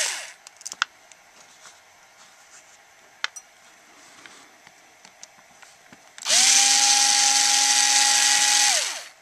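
Cordless drill with a screwdriver bit backing out carburetor cover screws, its motor whining steadily. It winds down at the very start, a few light clicks follow, then about six seconds in it runs again for nearly three seconds before winding down.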